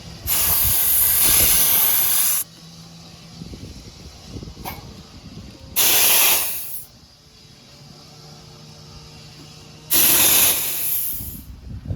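Three loud bursts of pressurized gas hissing out, about two seconds, one second and a second and a half long.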